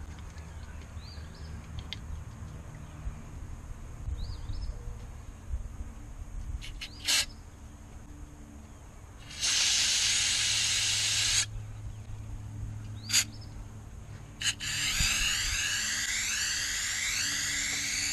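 Aerosol can of carburetor cleaner spraying into an outboard's carburetors: a few short hissing blasts, one spray of about two seconds, then a steady spray held from about three-quarters of the way in.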